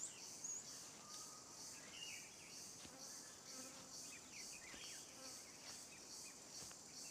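Faint chorus of insects, a high, evenly pulsing trill at about three pulses a second, with a few faint short chirps.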